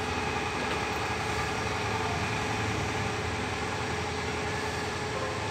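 Steady mechanical hum with a few constant tones running through it, unchanging throughout.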